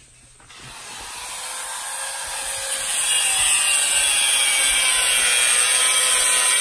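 Handheld angle grinder cutting through steel rebar: a loud, steady, high-pitched grinding that builds up over the first two or three seconds as the disc bites in.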